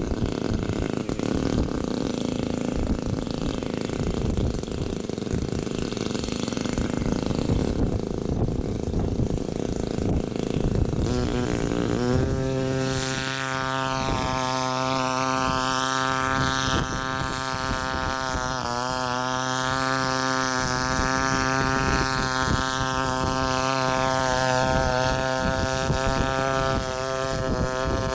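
Hybrid multirotor's onboard engine-generator running with a rough, steady rumble. About twelve seconds in, the DJI S1000 octocopter's rotors spin up and a steady, many-toned propeller hum joins it as the craft lifts off and climbs, its pitch wavering with the throttle.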